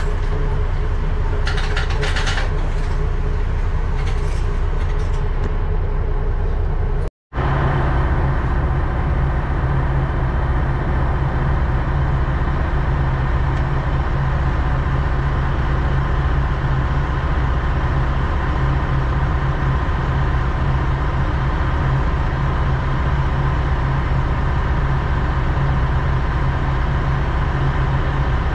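Diesel railcar engine idling steadily with a low, even hum while the train stands still; the sound breaks off for an instant about seven seconds in.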